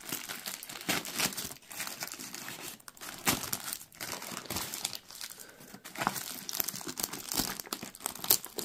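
A heavily taped parcel's packaging being crinkled and torn at by hand, in irregular rustling, crackling strokes with a louder tearing bout near the end.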